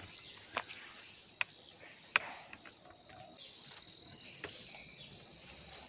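Scattered sharp clicks and knocks from walking and handling a plastic basket in a vegetable garden, the loudest a little over two seconds in, over a faint outdoor hiss. From about three and a half seconds in, a thin steady high-pitched tone sets in and holds.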